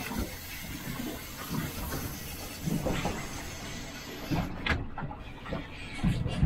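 Wind and choppy water noise around a boat, with an uneven low rumble and a few knocks, the loudest about six seconds in.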